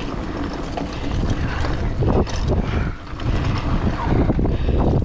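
Mountain bike rolling fast down a dirt and gravel trail: tyres crunching over stones and the bike rattling over bumps, with wind rumble on the action camera's microphone.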